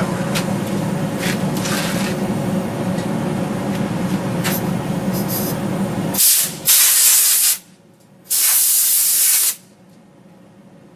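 A steady machine hum stops about six seconds in. Three loud bursts of hissing follow: a short one, then two of a second or more.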